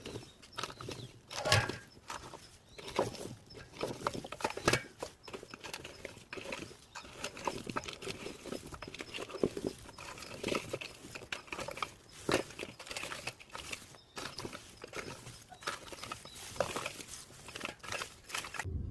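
Leaves and branches rustling, with scattered irregular knocks and snaps as wild pears are picked by hand. It cuts off abruptly just before the end.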